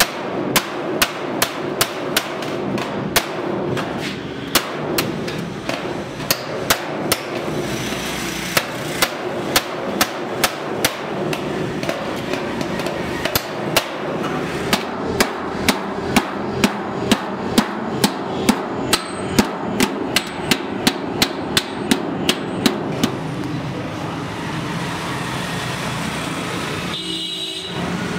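Hammer striking a cold chisel to cut a hole through a galvanized steel sheet: sharp metallic strikes, two or three a second, that stop near the end. A steady low hum runs underneath.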